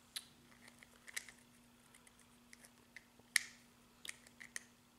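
Faint scattered clicks, taps and rubbing of a silicone egg-cooker cup and its lid being handled and pushed together, with one sharper click about three and a half seconds in.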